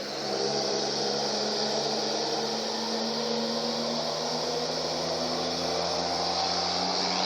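Volkswagen Constellation 24-250 truck's diesel engine pulling a heavy load through a straight-through exhaust, its pitch rising a little over the first few seconds and then holding steady, with a steady high hiss from the modified turbo.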